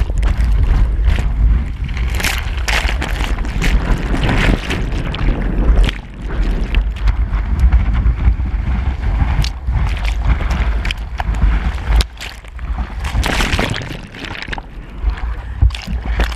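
Breaking whitewater rushing and splashing around a bodyboard as it is ridden through the foam, close on a GoPro's microphone. Frequent sharp slaps of water on the camera over a heavy low rumble of water and wind on the microphone.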